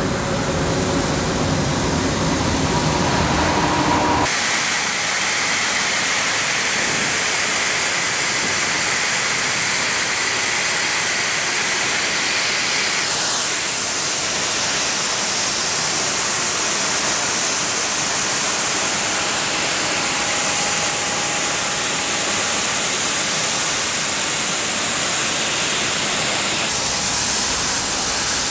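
Cappellotto CapStreet water-jet road-marking removal truck blasting paint off the asphalt: a loud, steady hiss. For the first four seconds it carries a lower engine rumble, and the sound changes abruptly about four seconds in and again around halfway.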